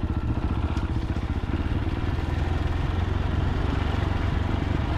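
Fantic Caballero 500's single-cylinder engine running steadily as the motorcycle is ridden, its exhaust pulses coming in a fast, even beat.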